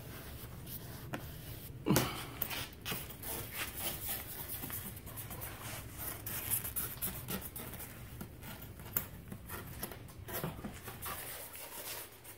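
Scissors snipping and hands rubbing new headliner fabric on its board, in irregular small clicks and rustles, with one louder knock about two seconds in.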